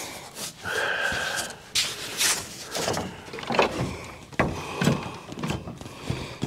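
Scattered knocks and clunks of a circular saw and plywood being handled on a pickup's tailgate and bed, with a brief squeak about a second in.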